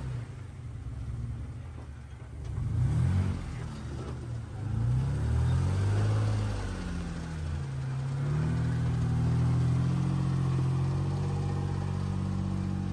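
Jeep engine revving in rising and falling surges. About eight seconds in, it settles into a steady, higher-revving pull.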